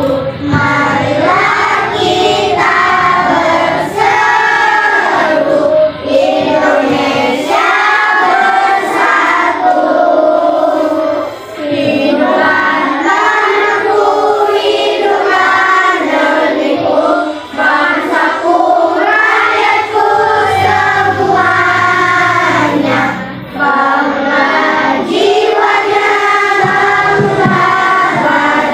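A class of young schoolchildren singing a song together, in steady phrases with short breaks between them.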